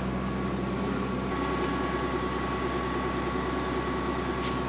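Farm tractor engine idling steadily.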